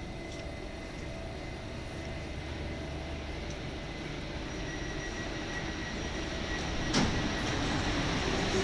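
Rubber-tyred driverless Paris Metro Line 14 train running, a steady rumble with a faint whine that grows slowly louder. A single sharp click about seven seconds in.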